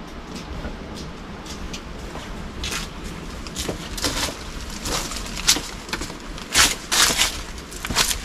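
Footsteps crunching on dry leaf litter and loose stones, irregular and getting louder as the walker comes close, with the loudest steps near the end.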